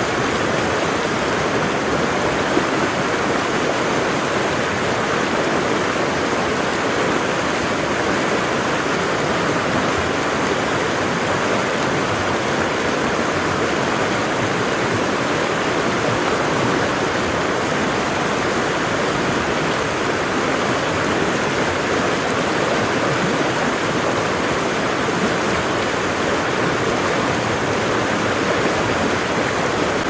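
A tall waterfall: the steady, unbroken rush of a large volume of falling water.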